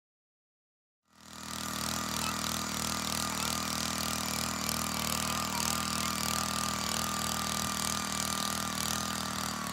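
Gas-powered two-person earth auger's small engine running steadily while drilling a post hole, at an even speed with a steady high whine above its drone. It fades in about a second in.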